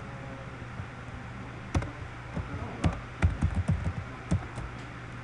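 Typing on a computer keyboard: about ten separate keystrokes at an uneven pace, coming fastest in a quick run around the middle.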